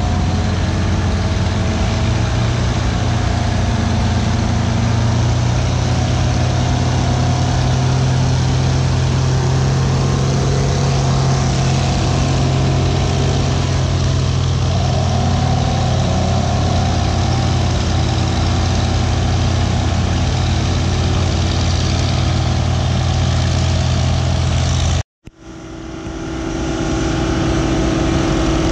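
Heavy diesel engines of antique earthmoving machines running steadily under load, with a deep low drone. About 25 seconds in, the sound drops out for a moment and comes back as a Euclid TC-12 crawler dozer, with its twin two-stroke Detroit Diesel engines, pushing dirt close by.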